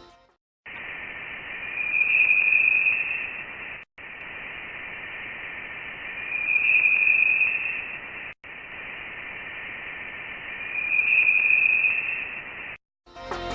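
Radio emissions recorded by a space probe or telescope and converted to sound: a band of static-like hiss that plays three times with brief breaks, each pass swelling in the middle into a high, chirping tone.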